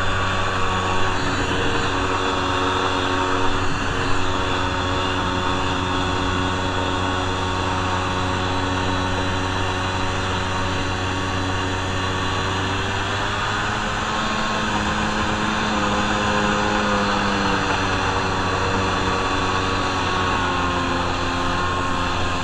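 Kawasaki JS440 jet ski's two-stroke twin engine running steadily under way, its pitch shifting a little about two-thirds of the way through.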